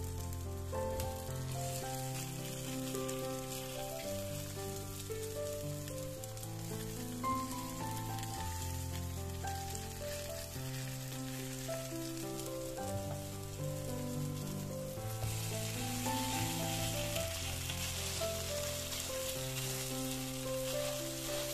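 Food sizzling as it fries in a hot pan, the sizzle growing louder about two-thirds of the way in, over background music with a melody and bass line.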